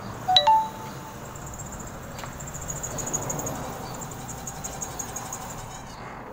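2001 Nissan Elgrand's 3.5-litre V6 van pulling up slowly, its engine running with a high, rapid cicada-like chirring, strongest about three seconds in. The owner hears this as something loose in the engine and traces it to the power steering, since it goes away after a power-steering additive. A brief sharp chirp sounds about half a second in.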